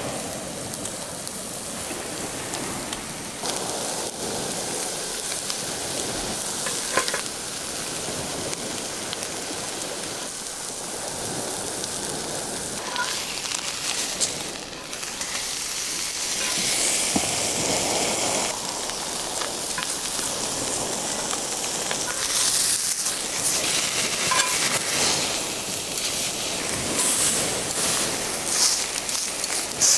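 Beef steak sizzling and crackling as it sears in a hot cast-iron skillet. It is turned with metal tongs about halfway through, and the sizzle gets louder after that.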